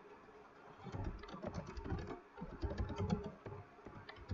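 Typing on a computer keyboard: a quick, irregular run of key clicks that starts about a second in.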